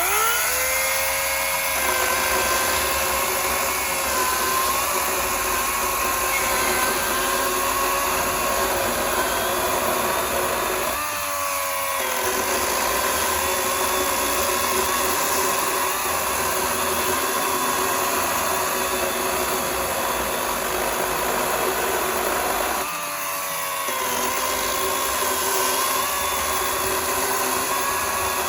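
Greenworks Pro 80 V cordless electric chainsaw spinning up and running at speed with a steady high electric whine. Its pitch drops briefly and picks back up twice, about eleven and twenty-three seconds in.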